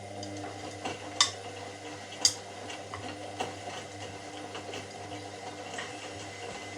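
Washing machine running, its motor giving a steady hum under water sloshing and a scatter of light clicks and knocks from the drum, with two sharper clunks about a second and two seconds in.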